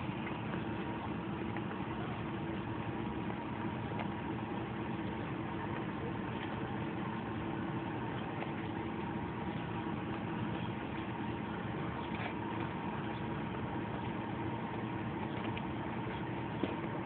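A steady mechanical hum, like a motor running nearby, with a few faint crackles of a plastic bag as a cat feeds inside it.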